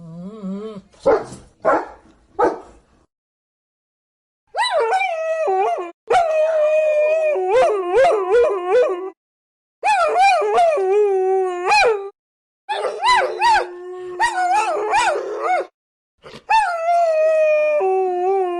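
Puppy crying: a few short yelps, then long whining howls that rise and fall in pitch, in several stretches with short breaks between them.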